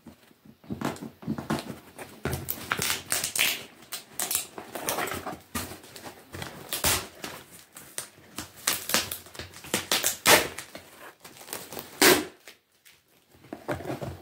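Hands handling a cardboard parcel and picking and scratching at its packing tape: an irregular run of scrapes, rustles and taps, with two sharper knocks in the second half.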